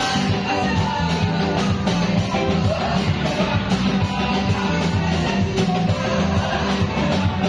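Church choir and a lead singer singing a gospel worship song through microphones, backed by a live band with keyboard and a steady beat.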